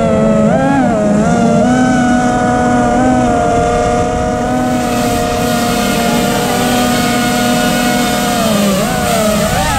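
FPV racing quadcopter's brushless motors whining, one steady pitch that swells and dips with the throttle, with a quick dip and surge near the end.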